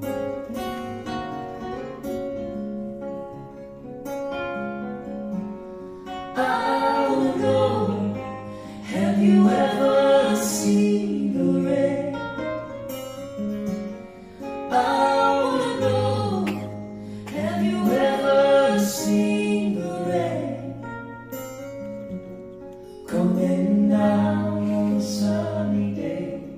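Live acoustic folk-pop song: two acoustic guitars playing chords, and from about six seconds in, voices singing in phrases over them.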